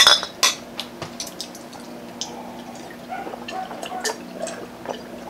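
Glass tumblers and glass mason-jar mugs clinking together in a toast, two sharp clinks in the first half second, then water being drunk from them with soft glass taps and gulping sounds.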